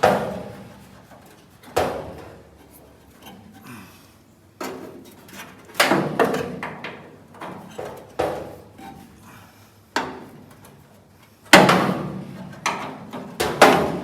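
Irregular sharp metal clanks and knocks, about nine in all, from hand tools working at a tight door-hinge bolt on a Ford truck cab.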